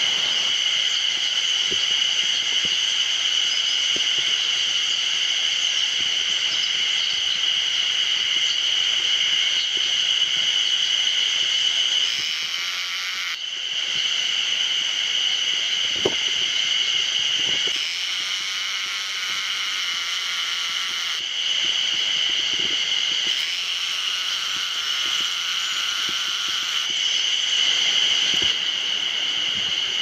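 Spring cicadas singing in a steady, high buzz, with other voices joining in and dropping out every few seconds.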